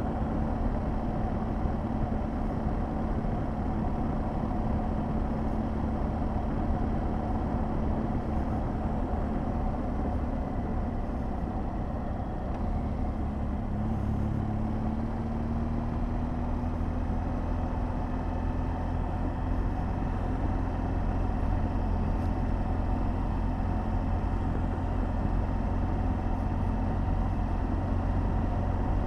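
BMW R1200GS Adventure's boxer-twin engine running at a steady road speed, with wind noise on the microphone. About twelve seconds in, the engine note dips, then rises steadily as the bike picks up speed again.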